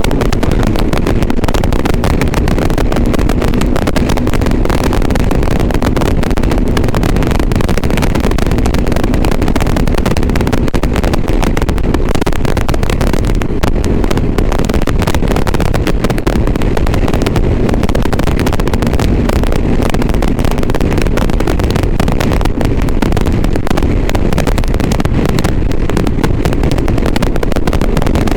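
Motorcycle riding, its engine and wind picked up by a GoPro's external microphone as a loud, steady, muffled rumble. A constant crackle runs through it: the distorted bad sound of this mic setup.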